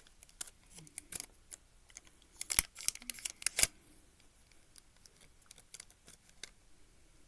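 Plastic pieces of a 5x5 puzzle cube clicking and clacking as they are handled and pushed together: a string of light irregular clicks, with two sharper clacks around the middle.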